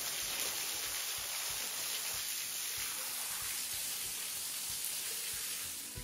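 A small waterfall, a thin stream dropping about 30 feet and splashing onto the rocks below, making a steady, even hiss.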